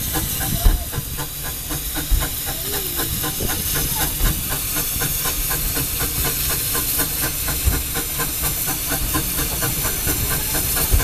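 Narrow-gauge steam locomotive on the move: a steady steam hiss with a fast, even beat of about five strokes a second, and a few low knocks about a second and a half to three seconds apart.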